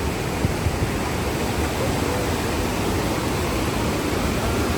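River water rushing: a steady, loud, even rush of running water.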